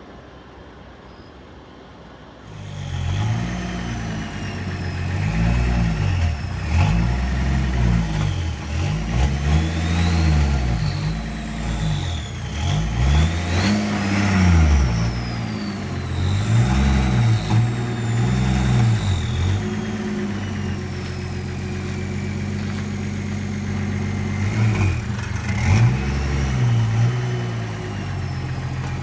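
BMW 524td's 2.4-litre turbo-diesel straight-six running and being revved up and down over and over, with a high whine that rises and falls with the revs and a short steady idle stretch in between. The engine is hard-starting, smoky and down on power.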